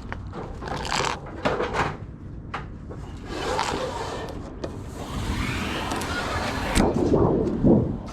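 Sheet aluminum being worked on a metal brake: a few sharp metal clacks, then a long scraping slide of the sheet, ending in heavier knocks.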